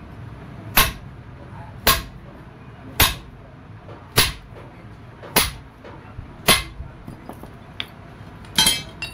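Hammer blows on a steel drift driving the worn bush out of a tractor pedal's pivot boss: six sharp metal strikes about a second apart, then a louder ringing clang near the end.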